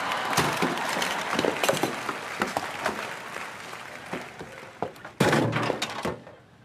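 A person crashing down through a suspended office ceiling onto a desk, with a continuous clatter of knocks and thuds as debris and desk items are knocked about. A louder, heavier crash about five seconds in, then it dies away.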